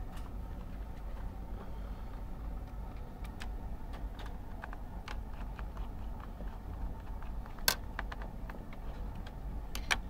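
Scattered small clicks and taps of hands working on an open HP NC6320 laptop's plastic and metal parts, with one sharper click about three-quarters of the way through, over a steady low hum.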